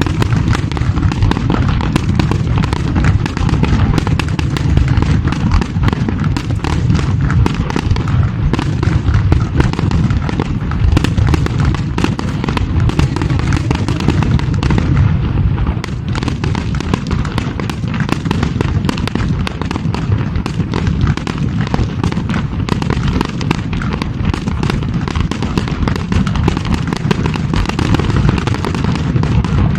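New Year fireworks display: a dense, unbroken barrage of booming shell bursts and crackling reports, with no pause.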